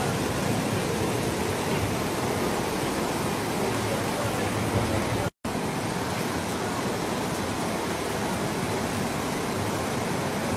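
Steady rush of muddy floodwater from a huaico (debris flow) pouring along the street and under the bridge. The sound cuts out for a split second about halfway through.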